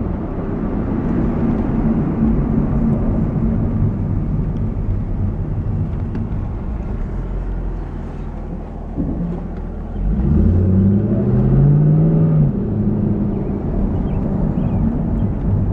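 2001 Chevrolet Camaro Z28's V8 engine running while driving, with steady road noise. About ten seconds in, the engine note rises as the car accelerates, then drops back a couple of seconds later.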